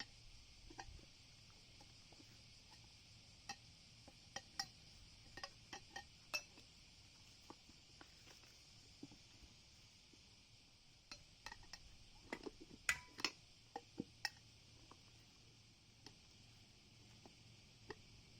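Faint, scattered metallic clinks and taps of tools and parts being handled during a scooter tyre change, over a steady hiss. The clinks come a few at a time, with a busier cluster a little past the middle.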